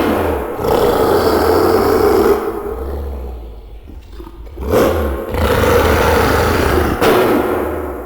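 King Kong's roar, a film monster-ape sound effect, given twice: one long roar at the start and a second about five seconds in, each lasting two to three seconds before trailing off.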